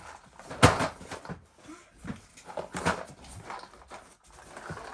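Boxes of screws being handled and set down on shelving: a loud knock about half a second in, then smaller knocks and rattles.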